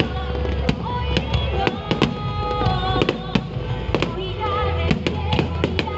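Aerial fireworks going off in quick succession: many sharp bangs and crackles, several a second, over a low rumble, with music playing alongside.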